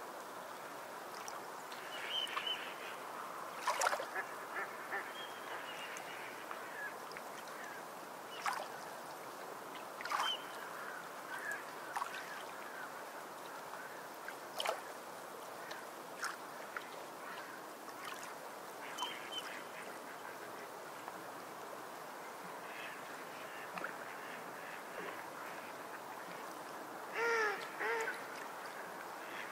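Scattered short bird calls over a steady rushing background, with a louder run of calls near the end.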